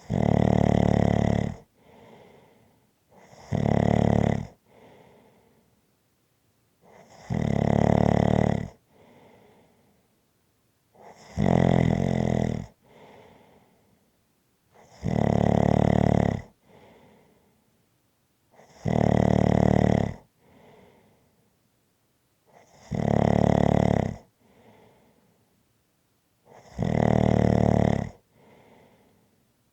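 A person snoring in a steady rhythm: eight loud snores, one every three and a half to four seconds, each followed by a softer breath.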